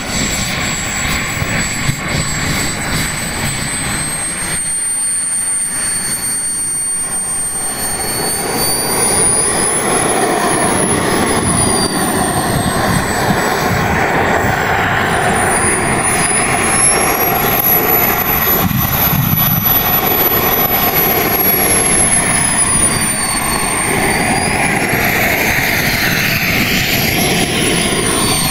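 Twin Kingtech K210 gas turbines of a giant-scale RC F-14 Tomcat running as it taxis: a jet rush with a high whistle that rises and falls in pitch several times, getting louder about eight seconds in.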